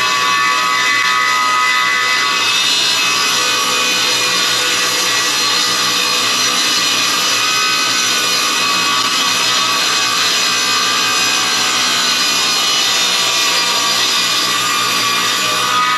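Laguna Fusion F1 table saw ripping a white oak board, the blade cutting steadily through the hardwood with a continuous, loud whine.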